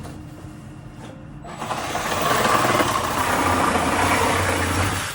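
Reciprocating saw (Sawzall) running and cutting through cardboard. It starts about a second and a half in and stops shortly before the end.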